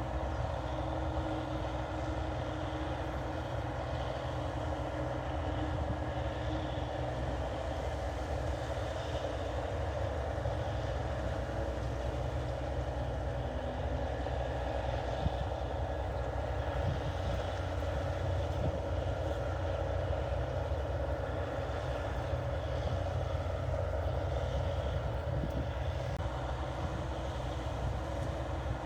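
NH 8080 rice combine harvester running steadily while harvesting paddy, its engine and machinery making a constant low drone.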